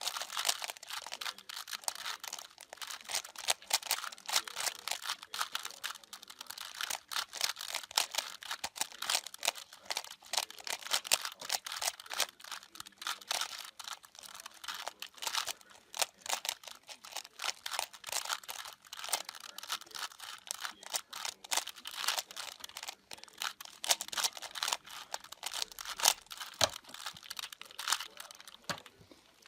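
A 3x3 puzzle cube being turned quickly by hand during a solve: a dense, irregular run of plastic clicks and clacks as its layers rotate.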